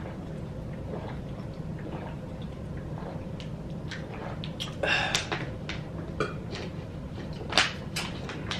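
Close-miked eating sounds of fried chicken wings: wet chewing and lip-smacking with scattered clicks, and a louder smack about five seconds in and again near the end.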